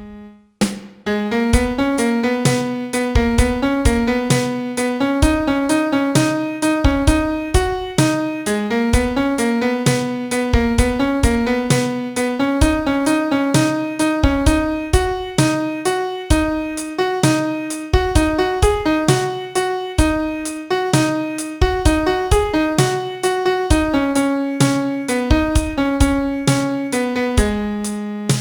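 Piano, likely a digital piano sample, playing a pop-song melody note by note with lower notes beneath; it starts after a brief pause.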